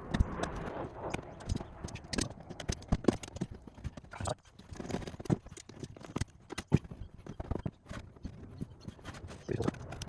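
Irregular metallic clicks and knocks of hand tools and fasteners being worked while fitting a bolt-on underbody brace.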